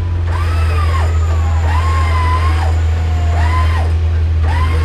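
Off-road 4x4 engine running steadily at a low, even pitch, with several drawn-out shouted calls from voices over it.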